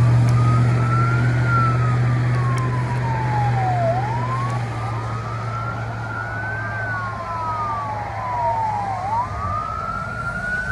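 Fire engine siren sounding a slow wail that rises and falls about every five seconds as the engine responds to a call. A low drone is strong at first and fades after about four seconds.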